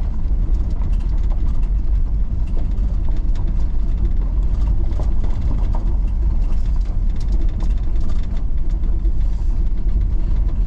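Van driving along a road: a steady, loud low rumble of engine and road noise with faint scattered ticks and knocks.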